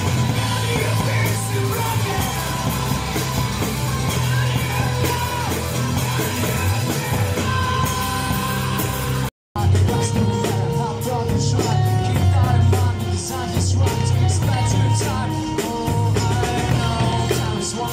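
Street rock band playing live on drum kit, electric guitars and bass guitar, with a singer. The music drops out for a split second a little past halfway and then carries on.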